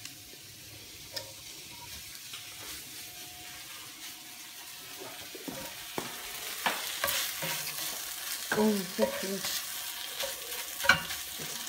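Scrambled eggs sizzling in a cast-iron skillet while a slotted spatula stirs and scrapes them. The scraping strokes come in about halfway through and grow louder.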